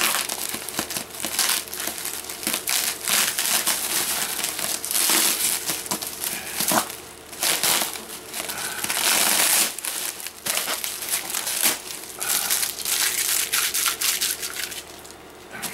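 Plastic bubble wrap crinkling and rustling as hands work at unwrapping a package, with dense little crackles. It eases off briefly near the end.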